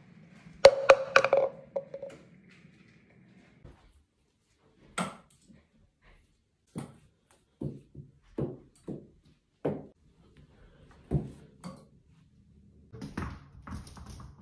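Light knocks and taps of small objects landing and bouncing. There is a ringing clatter about a second in, then a string of single knocks roughly half a second to a second apart, and a cluster of quick taps near the end.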